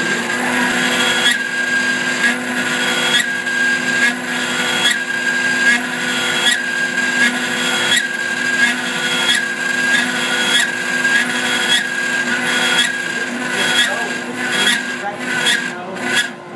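CNC router spindle running with a steady whine while its end mill cuts into a wooden guitar neck. The cutting noise swells and eases in repeated passes just under a second apart, becoming quicker and more broken near the end.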